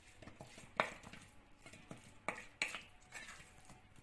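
A spatula scraping and knocking against a steel pan as pieces of cooked chicken are stirred to mix in ground pepper. There are several light strokes and three sharper scrapes, one about a second in and two close together past the two-second mark.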